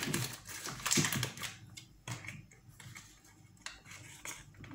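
Paper wrapper of a block of butter rustling and crinkling while a table knife clicks against it as the butter is unwrapped: a scatter of small clicks and rustles, busiest in the first two seconds, then a few sparse ticks.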